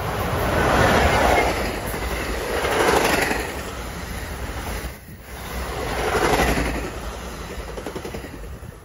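NJ Transit commuter train of a locomotive and bilevel coaches passing at speed. The wheels rumble and clack on the rails, swelling loud about a second in, again near three seconds and near six seconds as the cars go by, then fading toward the end.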